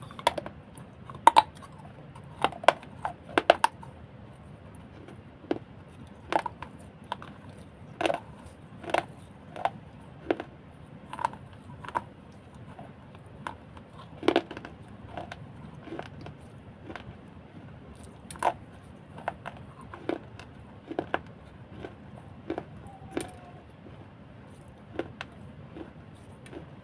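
Close-up crunching of a person biting and chewing pieces of a brittle baked-clay cup: sharp, crisp cracks at irregular intervals, about one a second, loudest in the first few seconds.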